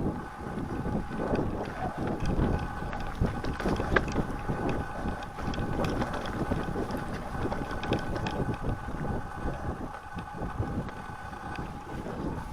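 Mountain bike rolling over slick snow and mud, with a continuous rumble from the tyres and frequent small rattles and knocks from the bike. Wind buffets the microphone throughout.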